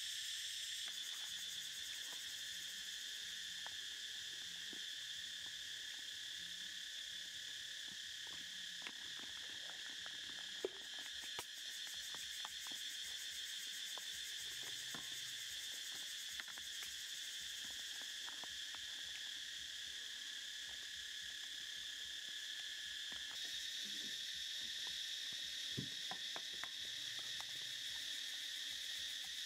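Steady, high-pitched chorus of insects, unbroken throughout. A few faint clicks and knocks come through it, from a ladle and bowls being handled at the cooking pan.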